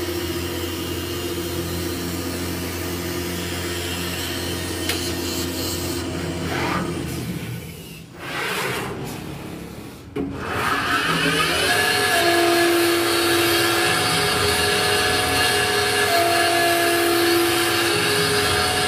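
CNC wood lathe running, its motors humming steadily while it turns a wooden spindle. About eight seconds in the sound drops briefly, then a louder machine sound rises in pitch and settles into a steady whine, with tones coming and going, as a router bit cuts a twist into the turning spindle.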